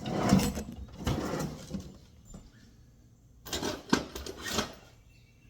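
Toolbox drawer rummaged through, with metal sockets and tools clattering and knocking, in two spells with a pause between.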